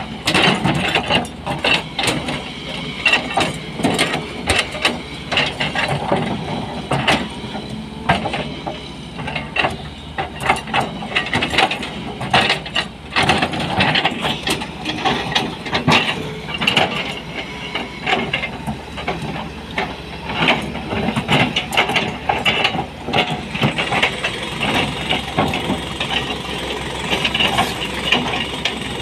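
SANY SY220 hydraulic excavator with its diesel engine running under load while the steel bucket digs and scrapes through broken stone, giving many irregular knocks and clatters of steel on rock.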